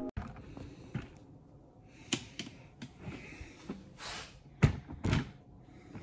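Handling noise as a camera is picked up and set in place: scattered clicks, knocks and rustles, with two louder thumps close together near the end.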